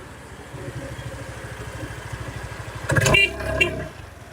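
A motor vehicle's engine running with a steady rapid low pulse, with a loud brief tonal sound about three seconds in.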